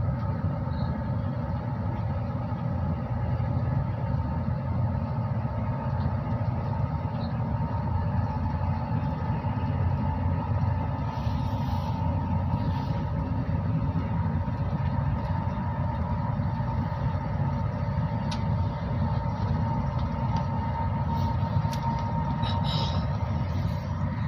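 Passenger train in motion: a steady rumble of wheels on rails, with a faint steady hum above it.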